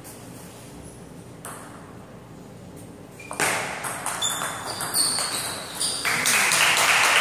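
Table tennis rally: a quiet pause, then from about three seconds in the celluloid ball clicks off bats and table several times a second, with short shoe squeaks on the floor. About six seconds in, a loud, steady rush of noise rises and holds.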